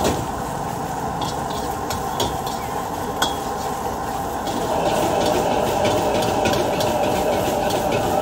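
Metal wok ladle scraping and clanking against an iron wok as cabbage and noodles sizzle over a strong gas burner, with the burner's steady rush underneath. The ladle strikes are scattered at first and come thick and fast from about halfway through as the wok is tossed.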